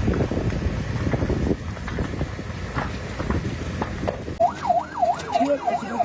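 Rough, crackly noise, then about four and a half seconds in a sudden change to an emergency vehicle siren wailing fast, about two and a half rises and falls a second. A second, lower-pitched siren joins in near the end.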